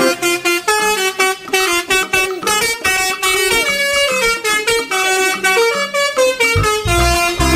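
Telolet bus horn playing a quick melodic tune: a run of horn notes stepping up and down in pitch.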